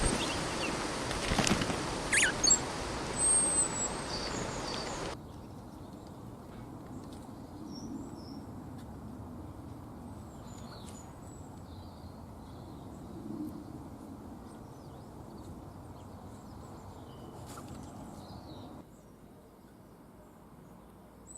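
Small garden birds giving short, high chirps and whistles over a steady background hum. The background drops abruptly about five seconds in and again near the end, where separate clips are joined.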